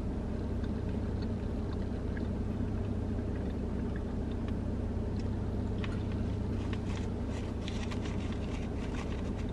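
Steady low hum inside a parked car's cabin, with faint scattered clicks over it, more of them in the second half.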